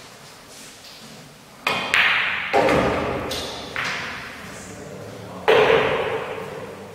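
A pool shot: the cue tip strikes the cue ball about a second and a half in, followed by sharp clacks of balls colliding and knocks as balls hit the cushions and drop into a pocket. A last loud knock comes near the end.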